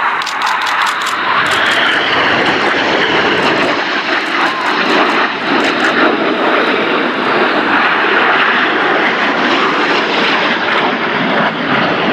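BAE Hawk T1 jets flying past in formation, their Adour turbofans giving a loud, steady jet roar. A falling whine comes through a second or two in.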